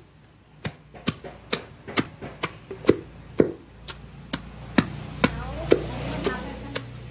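Wooden pestle pounding chopped raw fruit and cassava in a large mortar, a steady run of thuds about twice a second.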